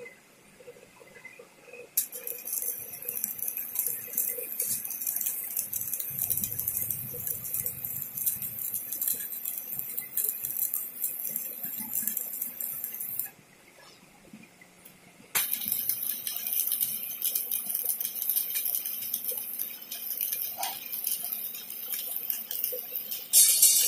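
Stick (MMA) arc welding on a hydraulic-cylinder piston: the electrode's arc crackles and sizzles steadily. It strikes about two seconds in, breaks off for about two seconds midway, then is struck again and runs on, flaring louder just before the end.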